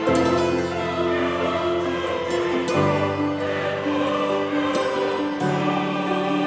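Background music: a choir singing sustained chords, the chord changing about every two and a half seconds.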